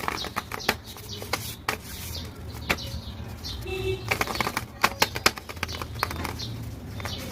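Blind-bag packaging being handled: crinkling and rustling with many sharp crackles.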